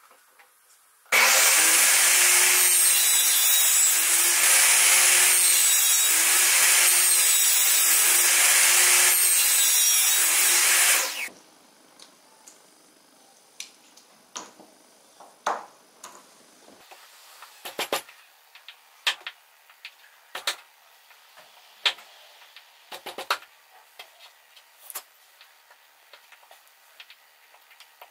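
Table saw cutting wood with its blade tilted for the angled sides of butterfly keys, the sound dipping in a repeating pattern about every two seconds before cutting off suddenly about eleven seconds in. After that come scattered light clicks and scrapes of a chisel paring a small wooden butterfly key by hand.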